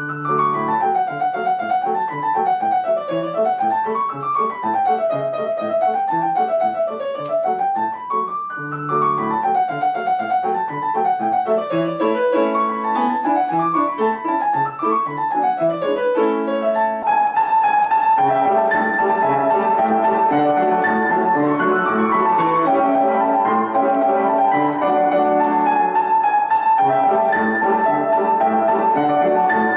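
Solo piano playing a lively polka, with the melody running up and down in quick scales. About seventeen seconds in, the sound changes abruptly to denser, louder playing.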